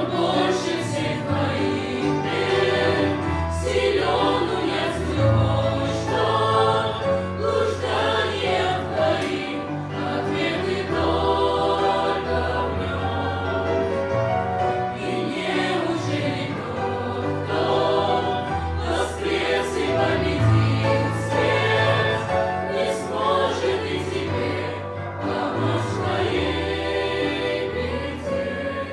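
Choir singing a Christian hymn with instrumental accompaniment.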